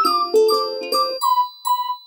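Music of bright, bell-like struck notes over lower chords; just over a second in, the chords stop and two lone chime tones ring out.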